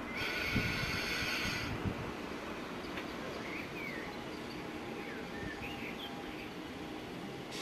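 Pre-war Berlin S-Bahn class 477 electric train pulling into the platform: a high squeal for the first second and a half that cuts off suddenly, then the train's faint steady hum as it slows. Small birds chirp a few times.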